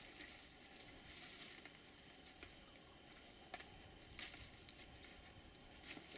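Faint rustling of apple-tree branches and leaves as a person moves about in the tree, with a few sharp clicks of twigs in the second half.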